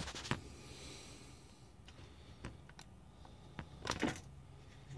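A few light clicks and knocks of handling, with a cluster of sharper clicks about four seconds in, over a faint low steady hum.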